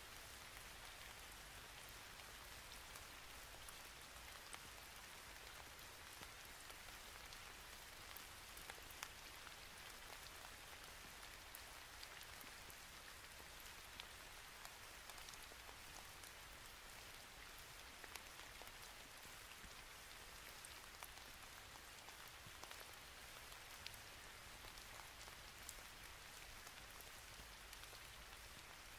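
Near silence: a faint steady hiss with scattered soft ticks.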